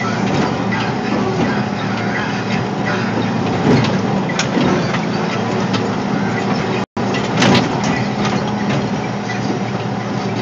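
Caterpillar 525B skidder's diesel engine running steadily under load as the machine drives, heard from the cab, with a few loud knocks and rattles from the machine. The sound cuts out completely for an instant about two-thirds of the way through.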